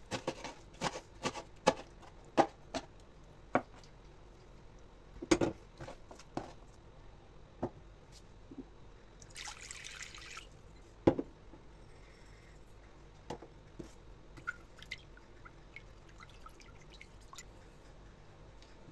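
A knife chopping spinach on a wooden cutting board, quick sharp taps for the first few seconds, then a loud knock. About nine seconds in, water is poured into a glass bowl for about a second, followed by the loudest knock of all and a few faint ticks.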